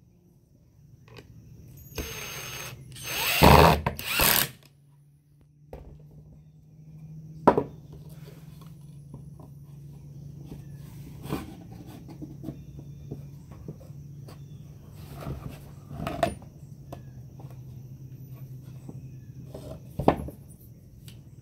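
Ryobi cordless impact driver driving a screw into a wooden planter box in two short runs, the second the louder. Then wooden boards knock sharply a few times as they are handled, over a steady low hum.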